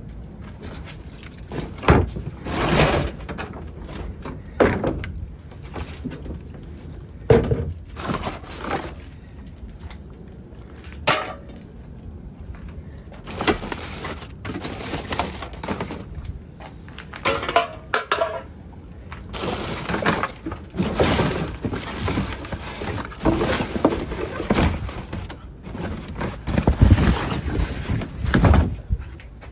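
Hands rummaging through a wheeled bin full of cardboard boxes, paper bags and plastic packaging: irregular rustling and crackling with frequent sharp knocks as the contents are shifted.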